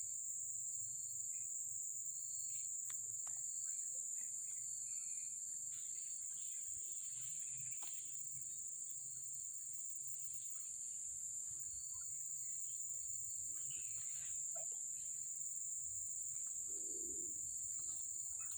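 A steady, high-pitched insect chorus drones without a break, with faint scattered ticks and a low hum underneath.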